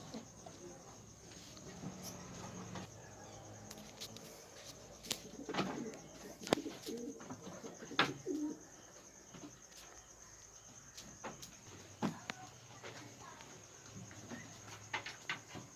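Faint low cooing of pigeons, with scattered sharp clicks and knocks.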